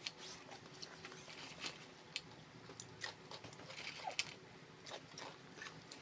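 Close eating sounds: chewing with scattered short crunches and mouth clicks.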